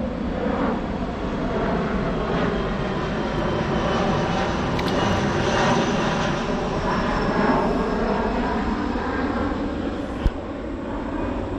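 Propeller airplane engine passing over: a steady drone with many overtones whose pitch slowly drifts.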